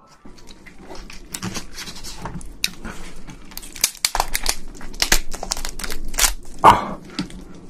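Shell of a giant cooked prawn cracking and tearing as gloved hands twist and pull it apart: a run of crackles and snaps that grows denser about a second in, with the loudest crack near the end.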